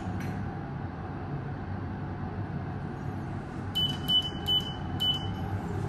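Four short high beeps from a Mitsubishi lift's car button panel as a floor button is pressed, all within about a second and a half just past the middle, over the steady low hum of the lift car.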